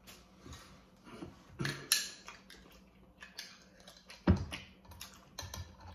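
Scattered light clicks and taps of things handled on a glass tabletop, with one loud knock a little past four seconds in as a glass jar of queso is grabbed.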